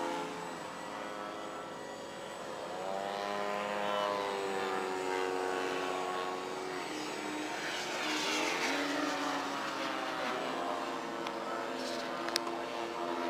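Radio-controlled model airplane's engine and propeller droning as it flies overhead, the pitch sweeping up and down as it passes and changes throttle. A sharp click near the end.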